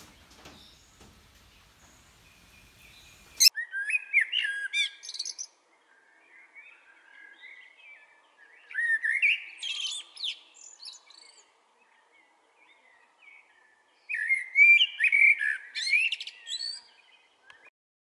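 Male common blackbird singing: three phrases of low fluting whistles, each running into a high twitter, with quieter warbling in the pauses between them. The song begins about three and a half seconds in, after a few faint clicks.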